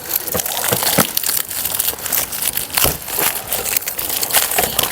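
Crackling, crinkling and irregular sharp clicks of a broken plastic door mirror and the sticky tape on it being handled at close range.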